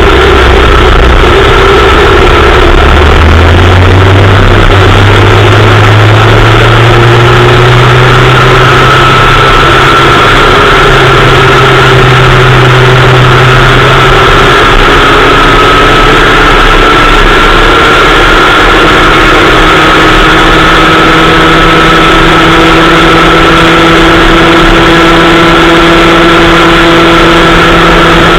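Kid Kart's small two-stroke engine running hard under a camera mounted on the kart, very loud. Its pitch climbs over the first several seconds, then holds high with only slow shifts as it laps.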